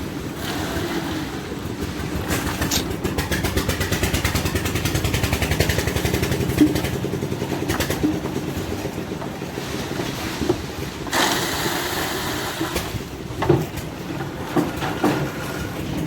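Concrete mixer machine's engine running steadily with a fast, even beat, and a few short knocks over it.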